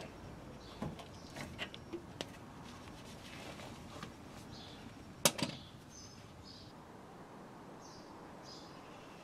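Small metallic clicks and taps of hand tools on the rear suspension, with one sharp knock about five seconds in. Faint bird chirps in the background.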